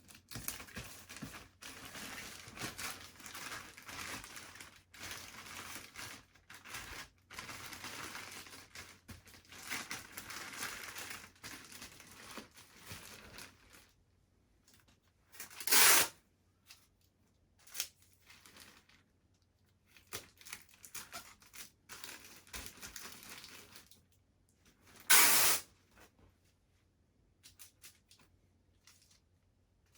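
A plastic postage bag rustling and crinkling as it is handled, then two short, loud rips of Sellotape being pulled off the roll, the second about ten seconds after the first.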